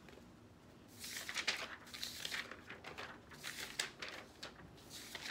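Sheets of drawing paper and card rustling and sliding against each other as they are lifted and shuffled through a stack, in quick irregular rustles starting about a second in.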